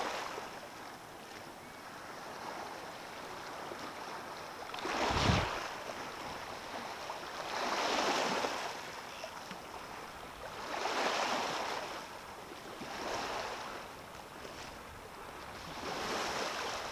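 Small sea waves washing in over the stones at the water's edge, each wash swelling and fading every two to three seconds, with one stronger rush about five seconds in.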